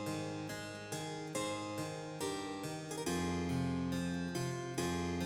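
Background instrumental music: a keyboard playing a steady run of sharply struck notes.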